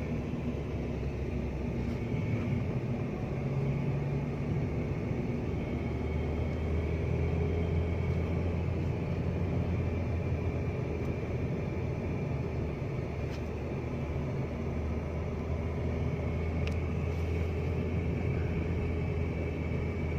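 Car driving at a steady speed, heard from inside the cabin: a steady low drone of engine and road noise.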